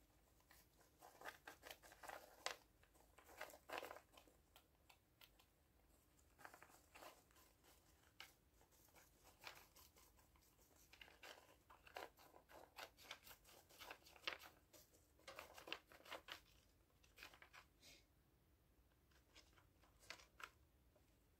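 Faint, irregular rustling and crackling of wood-shaving bedding as a dwarf hamster moves about in it, in scattered clusters of small scratches.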